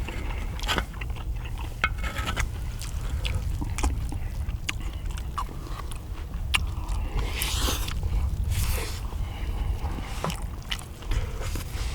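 Eating sounds: spoons scraping and tapping against a cast-iron pot lid as fried rice is scooped up, with chewing, many short irregular clicks over a steady low rumble.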